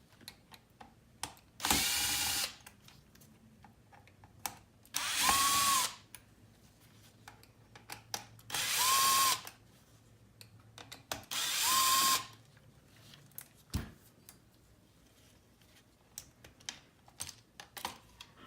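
Power screwdriver backing out four small screws from a car navigation unit: four short whirs about three seconds apart, each ending in a brief pitch bend as the motor stops, with small clicks of handling between them.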